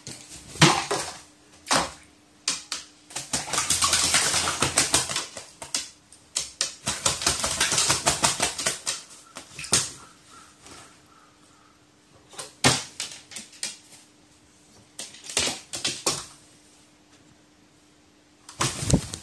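A crow bathing in a plastic basin of water, beating its wings in the water and splashing in rapid spattering bursts, the longest a few seconds in, with shorter single splashes and shakes between them.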